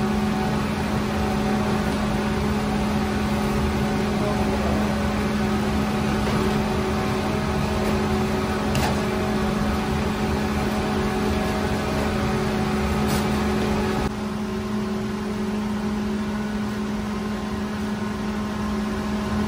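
Steady hum of bakery machinery, with a constant low tone. About fourteen seconds in it drops a little quieter and thinner.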